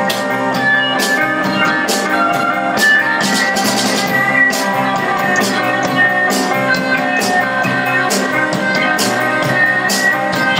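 Live rockabilly band playing an instrumental break with no singing: electric guitar on a hollow-body archtop with a Bigsby vibrato, over a drum kit keeping a steady beat.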